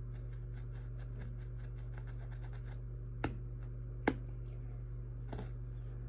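Toothbrush scrubbing at carpet fibres: short scratchy strokes, about three a second, with two sharper clicks a little past the middle, over a steady low hum.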